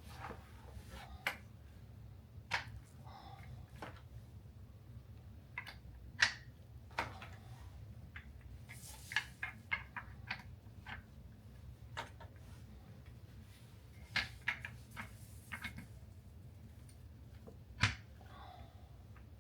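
Office chair parts being handled and fitted during assembly: a dozen or so sharp clicks, knocks and rattles at irregular intervals, the loudest about six seconds in and near the end, over a faint low steady hum.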